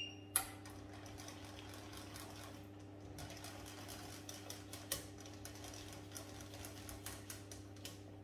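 Wire whisk clicking and scraping against the inside of a stainless steel saucepan as pastry cream is whisked on the hob: rapid, irregular ticks starting a moment in, over a faint steady hum.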